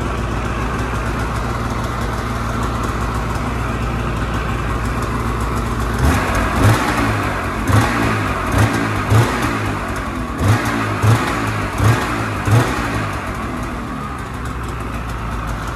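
Polaris RMK Khaos 850 snowmobile's two-stroke Patriot 850 twin, on its stock exhaust, idling steadily. From about six seconds in it is revved in about nine short throttle blips, then settles back to idle.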